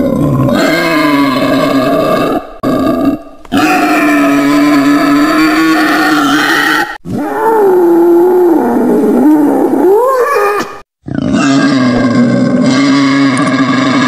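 Wild boar calling: a run of long, drawn-out pitched calls a few seconds each, separated by short breaks, one wavering up and down in pitch about two-thirds of the way through.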